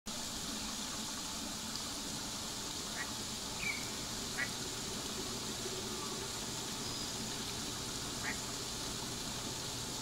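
Ducks giving a few short, high calls, about three to four seconds in and again near eight seconds, over a steady outdoor background hum.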